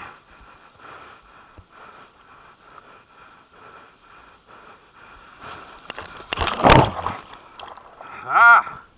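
A man's odd vocal noises while surfing. About two-thirds of the way through there is a loud, brief rushing blast of breath or noise, and near the end a short warbling, wavering vocal sound.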